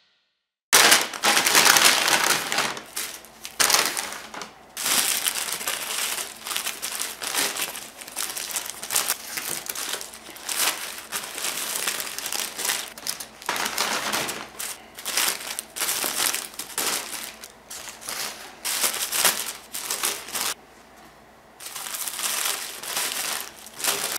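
Thin paper burger wrappers rustling and crinkling in irregular bursts as cheeseburgers are unwrapped by hand. The rustling starts under a second in and eases briefly near the end.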